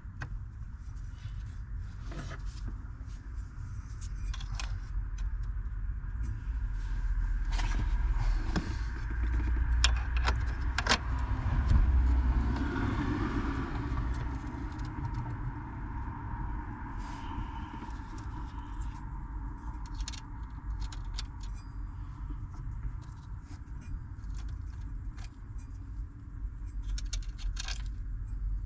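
Scattered metallic clinks and light scrapes of hand tools and steering-column parts being fitted, over a steady low rumble.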